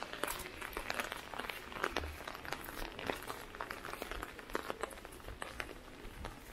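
Raindrops hitting an open umbrella just overhead: many small, irregular taps.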